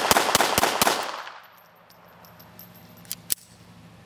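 FN Model 1910/22 pistol in 7.65 mm (.32 ACP) fired in a rapid string, about four shots a second, with the last shot about a second in and its echo dying away. Two sharp clicks follow a little after three seconds.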